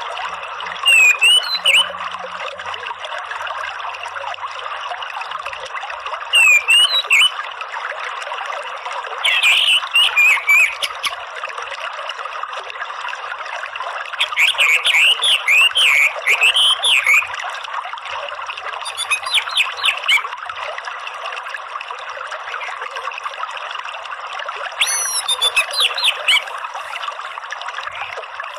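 Orange-headed thrush singing its soft twittering 'ngeriwik' song in short, high, rapid phrases, about six bursts spread across the stretch, over a steady rush of running water.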